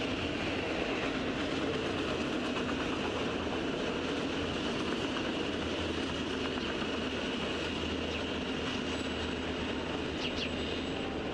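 Freight train's cars rolling past on steel rails, a steady, even rumble of wheels on track with no break.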